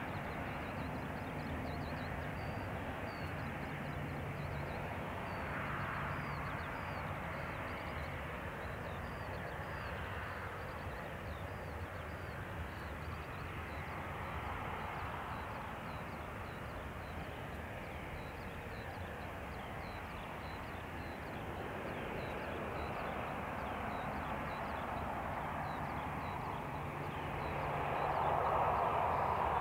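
Jet engines of a Boeing 737-800 (CFM56-7B turbofans) running at taxi power, a steady engine noise that grows louder near the end as the plane lines up on the runway.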